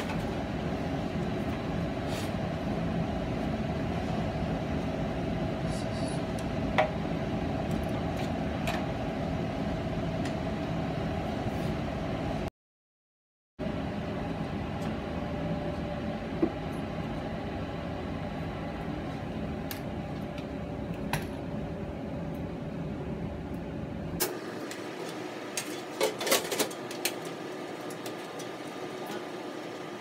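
Steady hum of running furnace-room equipment, with a faint held whine over a low rumble. Now and then a sharp click or knock as furnace parts and a cardboard parts box are handled, with a cluster of clicks and knocks near the end.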